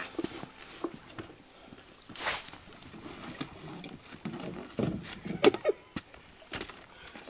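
Gear being unloaded from a beached canoe: scattered knocks and thuds against the hull and rustling of packs, with a louder clunk or two past the middle.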